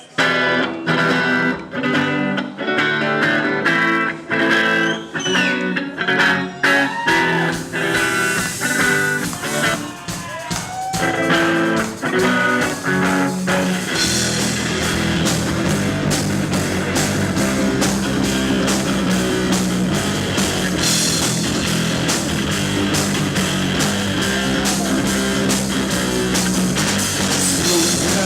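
Rock band playing an instrumental intro: a guitar melody alone at first, with bass coming in about seven seconds in and the full band with drums and cymbals filling out about halfway.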